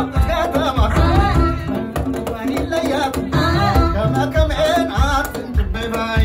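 Live Ethiopian music: a male singer over a microphone with hand drums keeping a steady beat.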